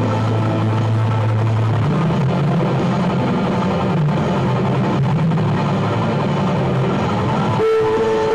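Heavily distorted electric guitar playing held low notes, shifting up a step about two seconds in and to a higher sustained note near the end, in a heavy metal style.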